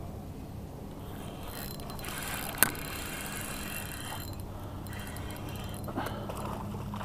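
Fishing reel being cranked in spells, its gears whirring and ratcheting as a hooked fish is reeled in, with one sharp click about two and a half seconds in. A steady low hum runs underneath.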